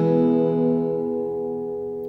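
Final strummed chord of an acoustic guitar ringing out and slowly fading at the end of a song.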